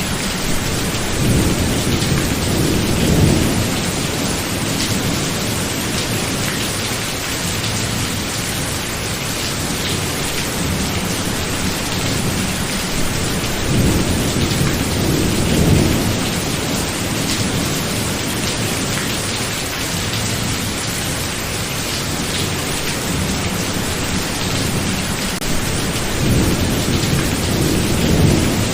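Heavy rain falling steadily, with rolling thunder swelling up three times: about a second in, around the middle, and near the end.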